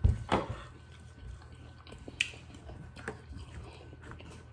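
Close-up eating sounds: chewing with small clicks, and a louder knock right at the start.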